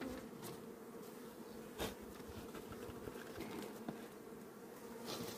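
Honeybees buzzing in a faint, steady hum over an open hive, with one soft knock about two seconds in.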